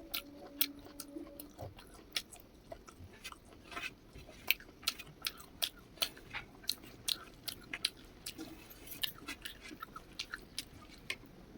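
Close-miked chewing and mouth clicks of someone eating, irregular wet smacks every fraction of a second.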